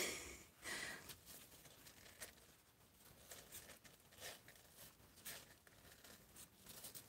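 Faint scattered rustling and scratching of newborn kittens crawling over one another on the cardboard floor of a box, with a louder rustle at the start.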